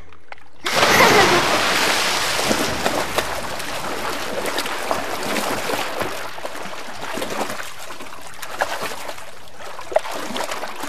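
Swimming-pool water splashing and sloshing as people swim through it, a steady wash of water noise that starts a moment in.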